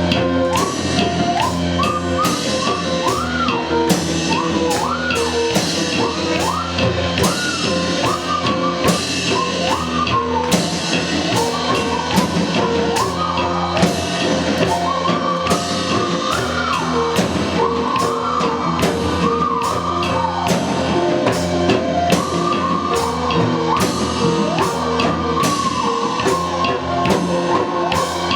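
Live rock band playing an instrumental passage, with a drum kit keeping a steady beat and a lead line sliding up and down in short, repeated arching phrases.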